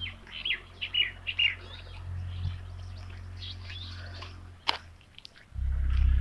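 Small birds chirping: a quick run of short falling chirps in the first second and a half, then fainter scattered chirps. Near the end a loud low rumble takes over.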